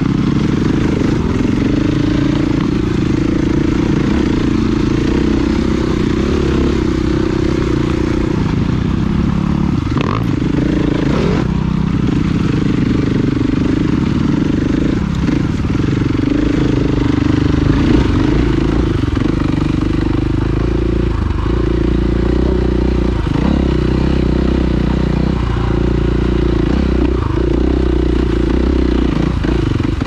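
Dirt bike engine running on trail, the throttle rising and falling so its pitch steps up and down, with a few sharp knocks and clatters from the bike about a third of the way through.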